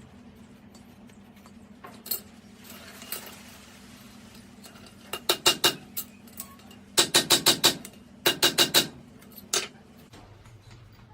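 Hammer strikes on metal with a ringing tone, in quick runs of four to six blows, several a second, with a few single hits between. A steady low hum runs under them and stops near the end.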